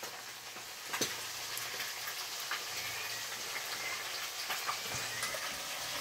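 Fish frying in hot oil in a pan: a steady sizzle with a few sharp pops.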